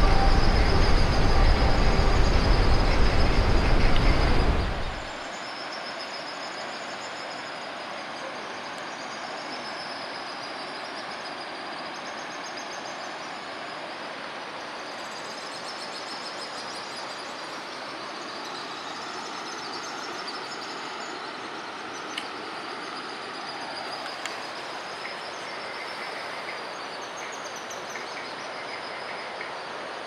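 Steady rushing noise of falling water, loud and deep for about the first five seconds, then dropping suddenly to a quieter, thinner hiss. Faint high twittering of swallows comes and goes over it.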